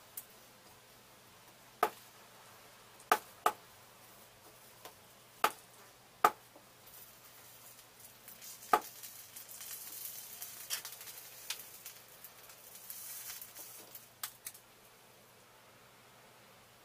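Several sharp clicks and taps, then for about five seconds a hissing sizzle as solder paste flux boils under a hot soldering iron on a thick copper cable joint, with a few more clicks before it dies away.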